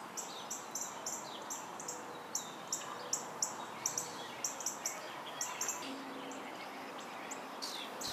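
Bird chirping repeatedly in short, high chirps, a few a second, over steady background noise.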